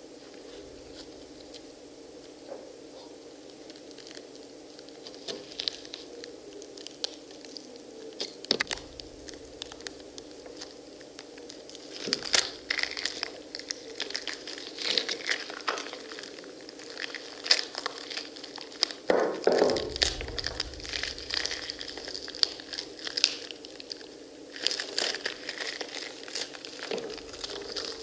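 Pomegranates being torn apart and crushed by hand: the rinds crack and tear and the seeds crackle and squish wetly. The crackling is sparse at first and grows dense from about halfway through, with one dull thump around two-thirds of the way in, over a low steady hum.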